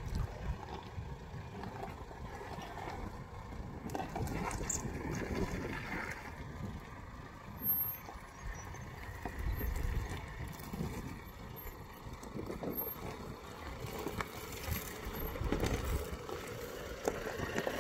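Jeep Renegade Trailhawk crawling slowly over a steep rock slab and loose stones: engine running at low revs under load, with an uneven rumble and scattered knocks from the tyres and suspension on rock.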